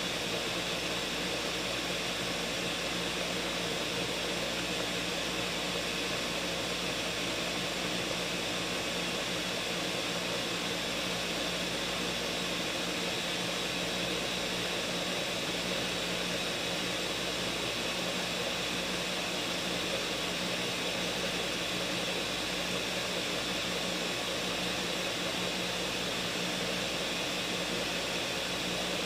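Ninja countertop blender motor running steadily through a long blend. It is working a thick mix of frozen strawberries and greens with less liquid than usual, a load the owner says the blender was having trouble with.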